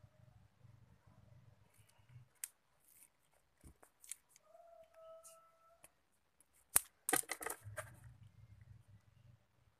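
Wooden klampis beads and an elastic cord handled close up: scattered light clicks, then a quick clatter of beads knocking together about seven seconds in.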